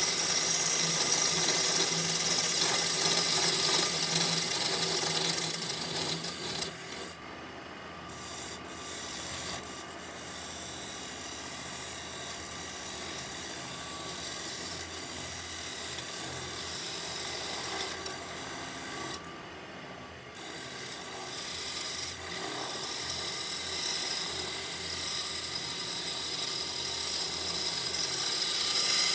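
Wood lathe spinning a red oak blank while a turning tool cuts it: a steady scraping hiss of tool on wood, loudest for the first six seconds, then quieter.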